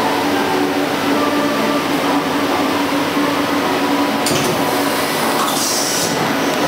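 CNC lathe running, a steady mechanical hum and whine with several held tones. About four seconds in, a hiss comes in for under two seconds.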